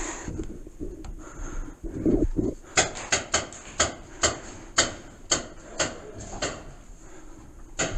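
About a dozen sharp cracks at irregular spacing, a few every second, starting about three seconds in: paintball markers firing.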